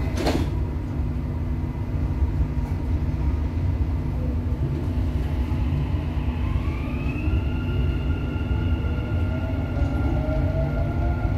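Dubai Metro train heard from inside the car, departing a station: a steady low rumble and hum, with a short knock right at the start as the doors shut. About six seconds in, the electric traction motors start a rising whine in several pitches that climbs as the train speeds up, then levels off.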